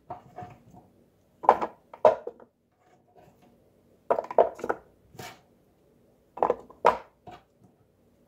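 Cut potato strips dropped by the handful into the bowl of an electric fry machine, landing in several short clusters of thuds and clatters with quiet gaps between.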